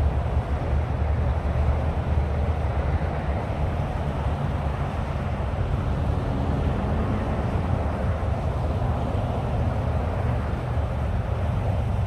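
Steady, low rumble of interstate highway traffic.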